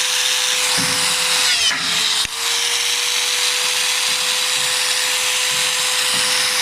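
Electric drill running steadily at high speed during riveting of box-section tube into a car sill. About one and a half seconds in its pitch sags briefly under load, and a sharp click follows just after.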